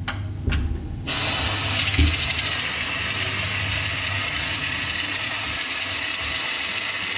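Aerosol can of rust treater spraying through a long extension tube into a body cavity: a steady hiss that starts about a second in and keeps going.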